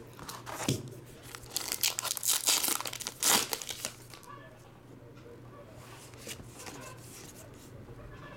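A foil trading-card pack being torn open, the wrapper crinkling and tearing in a quick run of sharp rustles that stops about four seconds in. After that, fainter handling of the cards.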